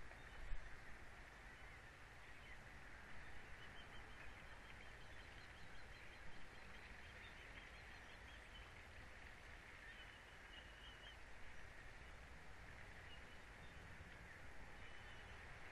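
Faint outdoor ambience of a coastal nest-cam microphone: a steady hiss and low rumble, with faint high bird chirps a few times.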